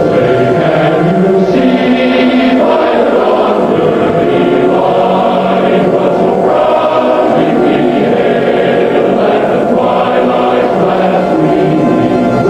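A choir singing slow, sustained chords.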